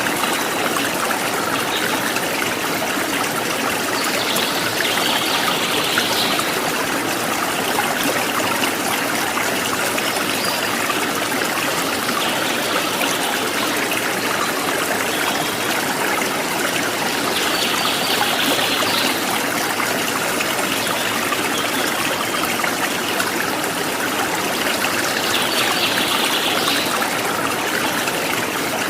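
A stream's running water rushing steadily, with a brief higher-pitched sound three times.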